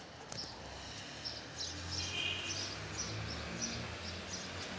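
Small birds chirping in the background: short high chirps repeating about twice a second, over a faint low rumble.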